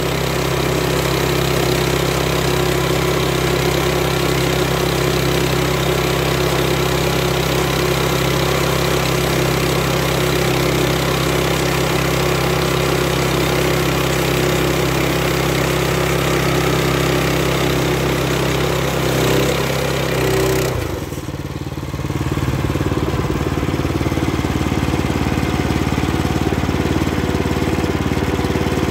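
Woodland Mills HM122 band sawmill at work: its gas engine running steadily under load while the band blade cuts through black walnut. About two-thirds of the way in, the cutting hiss drops away and the engine note changes, then it runs on steadily.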